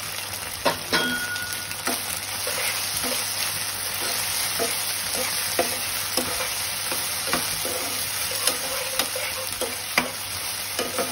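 Chicken, carrot and capsicum sizzling in oil in a frying pan while being stir-fried, with a steady sizzle and the spatula knocking and scraping against the pan every second or so; a couple of louder knocks come about a second in.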